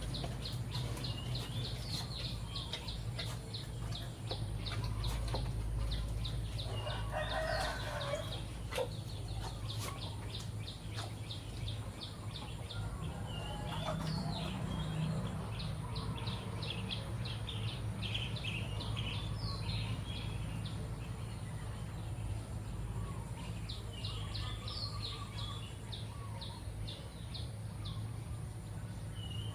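Birds calling: rapid high-pitched chirps repeating through most of the stretch, with a lower, louder call about seven to eight seconds in, over a steady low hum.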